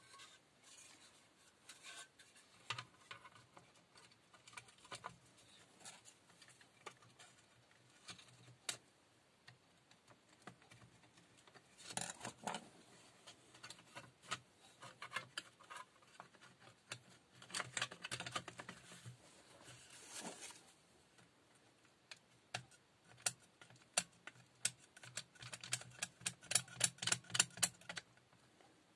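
Faint clicks, taps and rattles of a Black & Decker cordless drill's plastic housing being handled and fitted together, with a run of quick clicks near the end.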